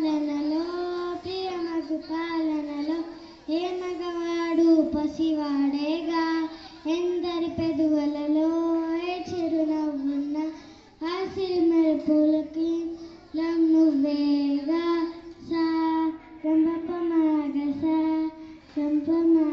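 A young girl singing solo into a microphone without accompaniment, holding long notes in phrases with short breaks for breath between them.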